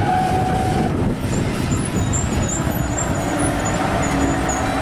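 Heavy tow truck running along a road while towing a bus, with steady road and engine noise. A steady whine stops about a second in, and faint high chirps go on throughout.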